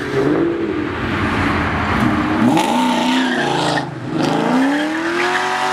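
Ford Mustang accelerating hard away from a standstill: for about the first two and a half seconds there is a dense noisy stretch with the engine revving and the tires squealing. Then the engine note climbs, drops sharply about four seconds in, and climbs again.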